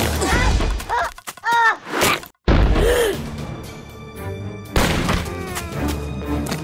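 Animated-cartoon soundtrack: background music with several thuds and short pitched cries that rise and fall. There is a brief drop to silence a little over two seconds in.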